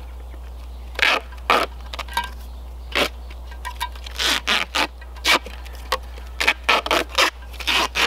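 Duct tape being pulled off the roll in a string of short, irregular rips as it is wrapped around a cinder block.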